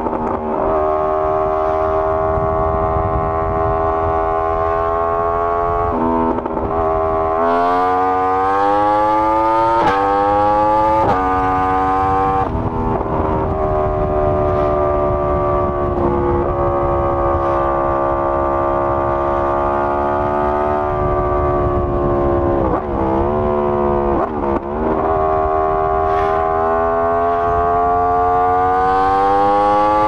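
Yamaha R1 inline-four engine running through an Akrapovic full exhaust system while the bike is ridden. The pitch climbs and drops back several times as it shifts through the gears, with two quick dips in pitch past the middle.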